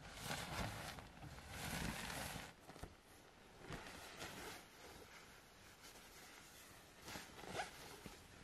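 Rustling of a shiny nylon sleeping bag and bedding being handled and spread out, louder for the first couple of seconds, then softer scattered rustles.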